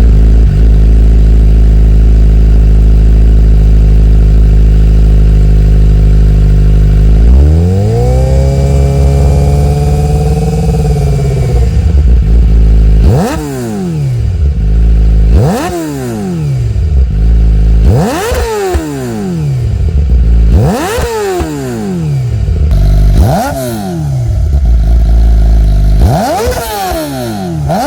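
A Suzuki GSX-R600's inline-four engine runs through a CS Racing full exhaust with the dB killer baffle removed, warmed up. It idles steadily, then is held at higher revs for about four seconds and drops back. It then gets a string of quick throttle blips, each revving up sharply and falling away, about every two and a half seconds.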